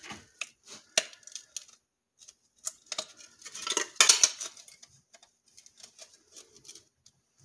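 Sheet-metal body panel handled at a steel bench vise: scattered light metallic clicks and clinks, with a louder rattling scrape of the thin metal about three to four seconds in.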